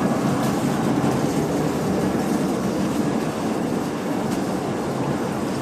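A machine tool running steadily as it counterbores a trepanned steel workpiece out to 6 inches, with continuous cutting and running noise over a low hum.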